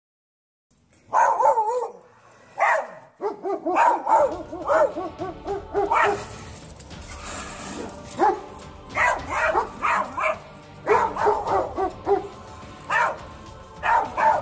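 Dogs, a husky and a German shepherd, barking again and again at a mountain lion, starting about a second in after a brief silence.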